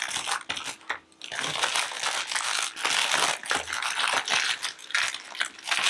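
Clear plastic packaging crinkling and rustling as hands handle it, with a short lull about a second in.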